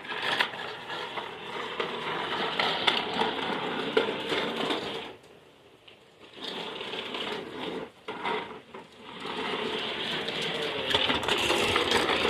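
Toy bubble lawnmower's mechanism whirring and rattling as it is pushed along, dropping out for about a second near the middle and briefly again before picking back up.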